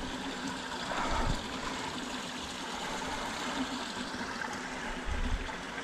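Small mountain stream flowing: a steady rush of running water, with a couple of short low bumps about a second in and near the end.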